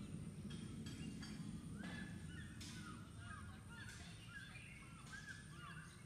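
Background birds chirping, many short calls that swoop up and down, thickest from about two seconds in, over a low steady rumble.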